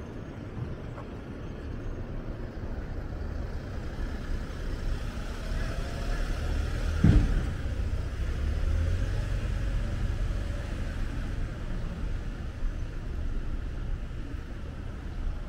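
A car driving past, its low rumble building and then easing off over several seconds, with one sharp thump about halfway through.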